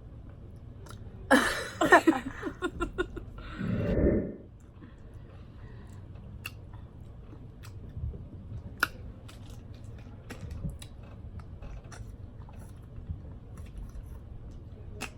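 A burst of laughter about a second in, lasting roughly three seconds, then chewing with scattered small mouth clicks and smacks.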